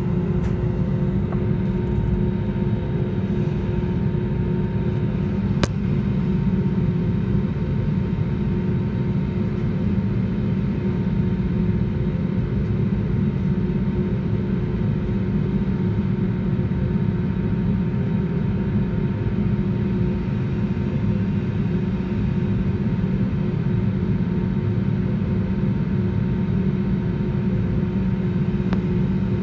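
Cabin noise inside an Airbus A320neo taxiing, its CFM LEAP-1A turbofan engines running steadily at low thrust: a steady hum with a few held tones. A single sharp click about six seconds in.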